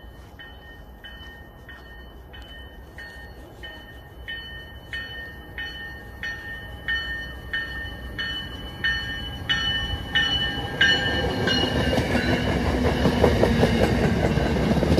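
MBTA commuter rail train approaching with its bell ringing steadily, about one and a half strokes a second, growing louder. About eleven seconds in the train reaches the platform and passes close by, its wheels clattering over the rails in a loud rush.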